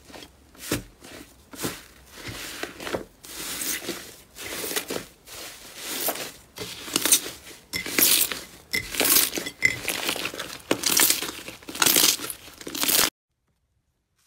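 Thick yellow slime being pressed and squeezed by hand, giving repeated crackling bursts about one to two a second that grow louder, then stop abruptly near the end.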